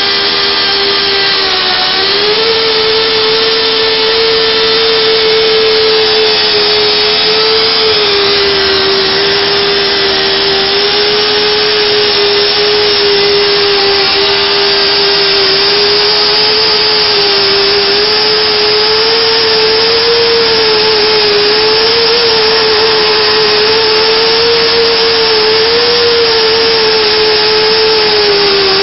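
Motor of a portable pipe-end machining tool running under load as it cuts a steel pipe, throwing off metal chips. A steady high whine that wavers slightly in pitch.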